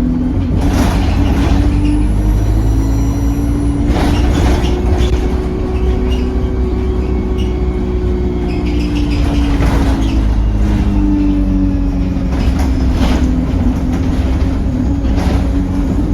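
Bus diesel engine running under way, its hum slowly rising and falling in pitch, with a high whistle that rises and falls about two to four seconds in and again at the end: the turbocharger whistle. Several short knocks come through at intervals.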